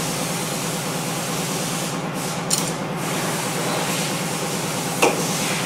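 Steady hiss with a low hum, and two small clicks, one about halfway through and a sharper one near the end, as a Torx screwdriver works the screws holding the bar on a Braillo magnet rack.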